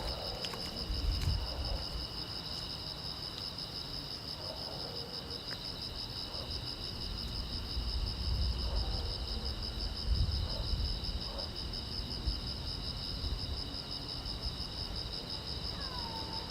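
Crickets chirping steadily in several high, pulsing trills at slightly different pitches, layered together. Beneath them a low rumble swells and fades a few times.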